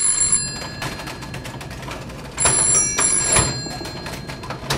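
Desk telephone ringing in double rings, each a pair of short bell bursts. One ring ends just as the sound begins, and another comes about halfway through.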